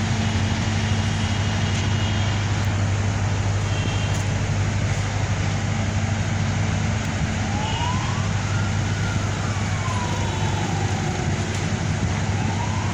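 A siren wailing in the distance, one slow rise and fall with a second rise starting near the end, over a steady low rumble of traffic.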